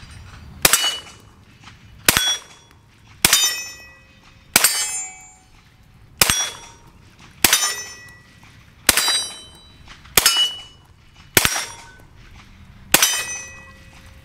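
Ten single shots from a 9mm Glock 19 fitted in a bullpup carbine kit with a 16-inch barrel, fired at a steady pace of about one every one and a half seconds. Each shot is followed by a ringing clang, the sound of a steel target being hit.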